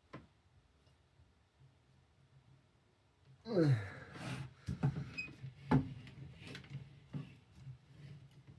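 Restored Westinghouse desk fan being handled: a short creak falling in pitch, then several sharp knocks and clicks, over a faint low hum.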